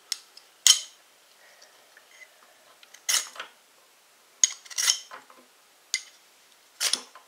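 A steel knife blade scraped hard down a ferro rod to throw sparks onto fatwood shavings, in about six short, sharp, rasping strokes at irregular intervals of a second or more; the shavings do not catch.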